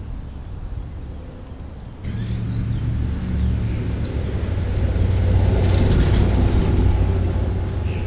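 A truck driving past on the street, a low engine and road rumble that swells from about two seconds in, peaks past the middle, and begins to fade near the end.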